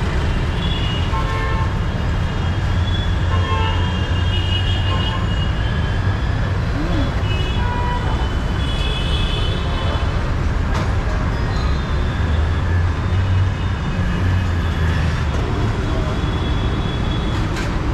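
Steady low rumble of heavy highway traffic, continuous and even throughout.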